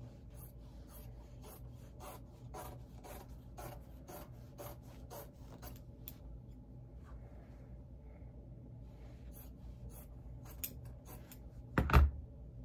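Metal scissors snipping through fabric in a run of quick cuts, then a few scattered snips. A single loud thump near the end.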